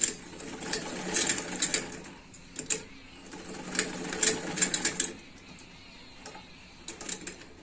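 Sewing machine running for about five seconds with rapid clicking from its mechanism, then stopping. The machine's loose nut has just been reset and the machine oiled.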